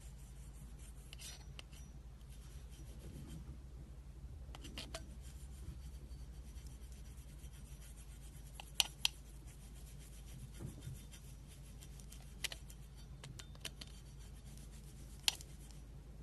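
Slime being worked by hand: faint rubbing with a few scattered sharp clicking pops, a close pair just past the middle and single ones later, over a steady low hum.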